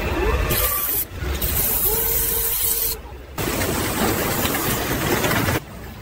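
Machine hissing, like a spray, in several stretches that start and stop abruptly: a short break about a second in, a longer gap around the middle, and a quieter stretch near the end.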